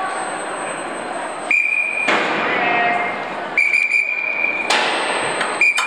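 A signal whistle gives three steady blasts: a short one about a second and a half in, a longer one of about a second near the middle, and a short one at the end. This is the kind of whistle used to signal an overhead crane as it positions a lifting block. Between the blasts, the workshop gives a steady noise.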